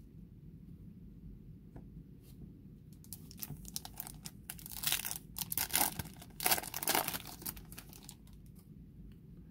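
Foil wrapper of a Topps Chrome trading-card pack being torn open and crinkled: a run of crackling tears starting about three seconds in and lasting about four seconds.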